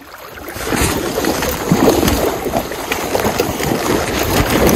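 Water splashing hard and irregularly, starting about half a second in, as a hooked chinook salmon thrashes at the surface while it is netted and grabbed by the tail.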